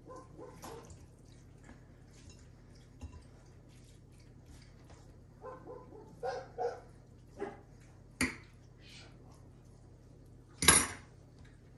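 Kitchen handling sounds of dishes and utensils: scattered soft knocks and taps, with one louder clatter near the end.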